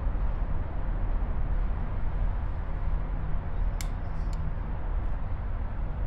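Steady low rumble of the Roosevelt Island aerial tram cabin in motion, heard from inside the cabin, with a few faint clicks about four seconds in.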